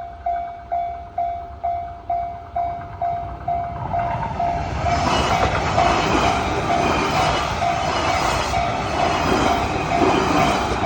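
Japanese railway level-crossing warning bell ringing steadily at about two strikes a second. About four seconds in, the noise of a train passing over the crossing swells up and runs on beneath the bell.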